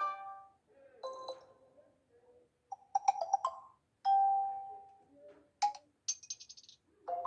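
Samsung Galaxy J2 Prime stock notification tones played one after another: about seven short, different chimes and jingles, some high and bright, some lower, each followed by a brief silence.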